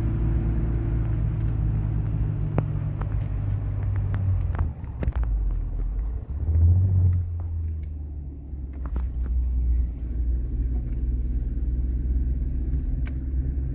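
Car engine and road noise heard from inside the cabin while driving, a steady low hum whose note drops just before halfway, surges briefly louder about a second later, then settles back to steady running.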